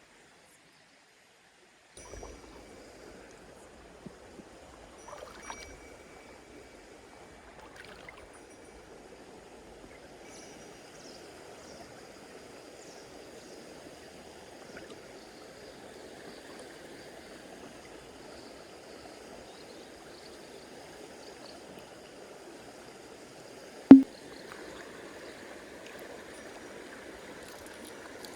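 Stream water rushing steadily over rocks, with a few light clicks and one sudden, very loud knock a few seconds before the end. The water sound starts abruptly about two seconds in, after a silent opening.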